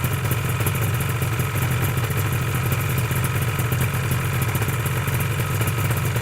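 Motorcycle engine idling steadily while stationary, with an even, fast pulse and no revving.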